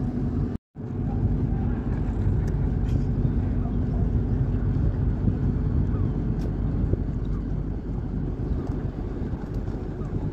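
Steady low rumble of a large ship's engines running close by, with wind on the microphone. The sound cuts out completely for a moment just after the start.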